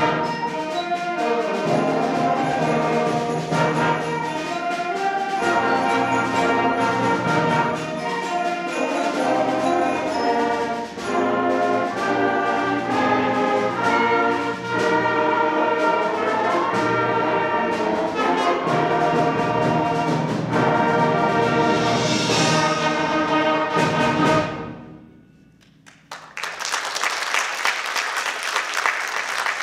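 A junior high concert band of woodwinds, brass and percussion, with chimes struck near the start, playing the closing bars of a piece. It builds through a swell to a final chord that cuts off sharply a few seconds before the end. After a brief hush, the audience breaks into applause.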